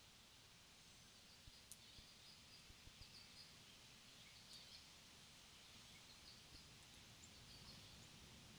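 Faint, short high bird chirps scattered over a quiet outdoor background hiss, with a few soft ticks in the first half.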